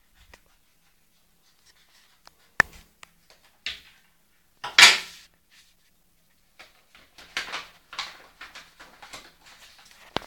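A paper envelope being cut open with scissors and handled: a sharp click, a louder paper rustle about five seconds in, then a run of light crinkling as packets of nail stickers are pulled out and laid on the table.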